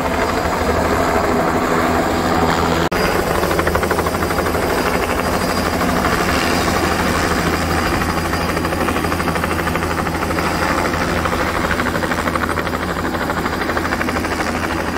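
Helicopter flying low over a cherry orchard, its rotor chopping steadily, with a momentary break in the sound about three seconds in. The rotor wash is drying rainwater off ripe cherries so they don't split.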